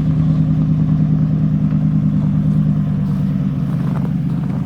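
An engine running steadily at a constant pitch, easing off slightly about three and a half seconds in.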